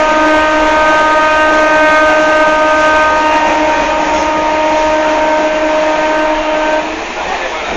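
Running noise inside a suburban electric train carriage, with a steady pitched tone over the rumble that cuts off abruptly near the end.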